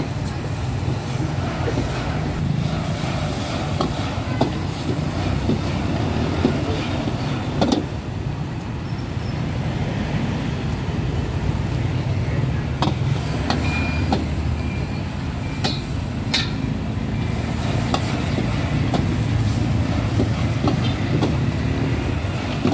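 Street traffic ambience: a steady low rumble of passing vehicles, with scattered short clicks and knocks.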